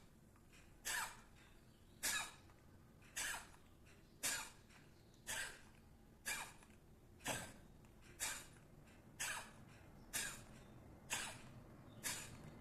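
Kapalbhati breathing: sharp, forceful exhalations through one nostril at a time, the other held shut, each a short rush of air, about one a second in an even rhythm.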